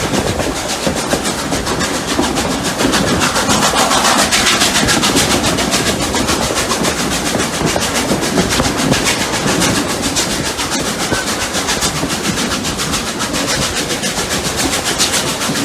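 Two steam locomotives, Rx207 and 621, working a train uphill: rapid, even exhaust beats over the rumble and clatter of wheels on rail.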